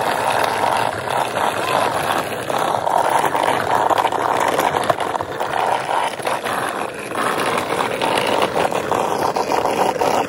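Ball-bearing wheels of a carrinho de rolimã rolling over asphalt: a steady, rough rolling rattle full of small clicks.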